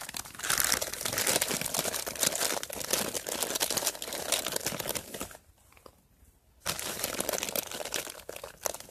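Plastic packet of ready-made ice-fishing groundbait crinkling and rustling as it is handled and opened over the ice hole, in two spells with a short pause a little past the middle.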